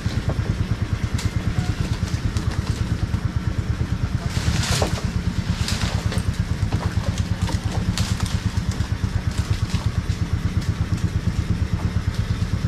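A boat's small engine idling with an even, rapid pulse. Dry palm fronds crackle a few times over it, loudest about five seconds in, as someone pushes through them.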